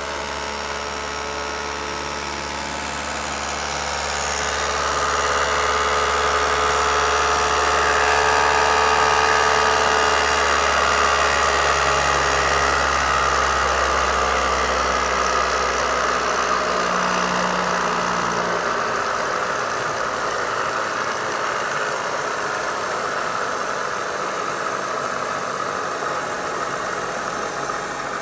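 Vertical CNC milling machine running, a steady mechanical whir with a whine in it. It grows louder a few seconds in and eases off slowly, and a low hum under it drops away about two-thirds of the way through.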